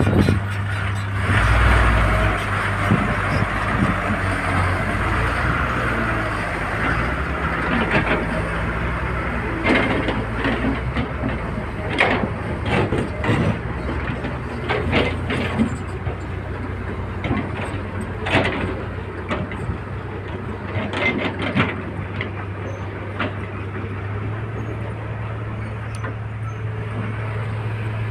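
Volvo excavator's diesel engine running steadily while it loads soil into a dump truck. A hiss comes in the first few seconds, and knocks and clanks are scattered through the middle.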